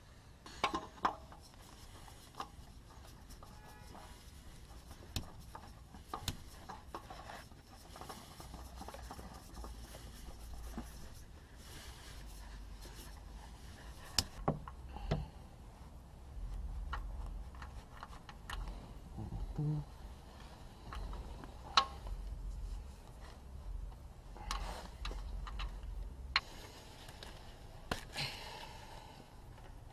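Scattered clicks, light knocks and rubbing from hands working on the car's oil filter and tools, with a faint low rumble through the middle.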